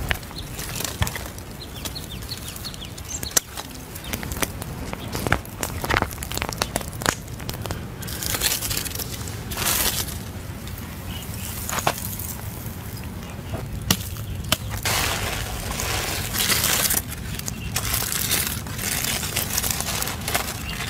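A stick raking and scraping through charcoal embers, with scattered sharp snaps, then aluminium foil crinkling and tearing as a roast chicken is unwrapped by hand.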